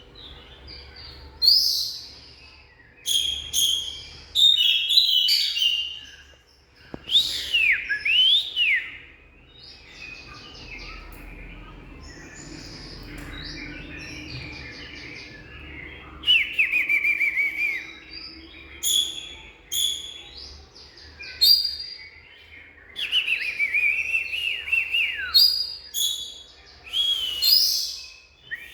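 Oriental magpie-robin singing: varied phrases of clear whistles, several sliding down in pitch, mixed with short sharp notes, in bursts with a quieter stretch in the middle.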